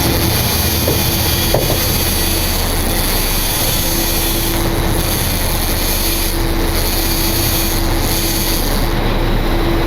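Charter sportfishing boat's engines running steadily at cruising speed, a constant drone with a low hum under the rush of wind and water.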